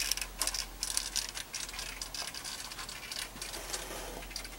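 Handling noise: irregular light clicks and rustling as gear and the camera are moved about.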